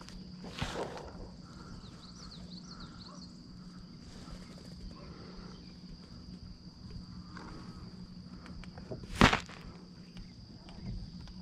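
Steady high-pitched drone of summer insects, with a faint knock near the start and a single sharp knock about nine seconds in.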